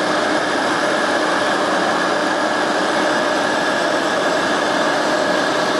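A vacuum cleaner and a tool and cutter grinder's wheel spindle running together, a loud steady hiss with a few held tones. The wheel is spinning free, just short of touching the end mill.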